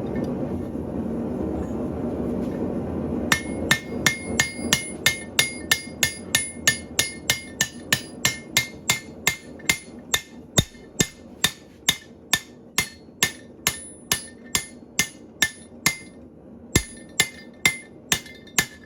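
Hand hammer striking a guillotine fullering tool on hot stainless steel rod, setting fullers: a long run of evenly paced blows, about two to three a second, each with a bright metallic ring. The blows start a few seconds in, after a steady rushing noise, and stop briefly near the end before going on.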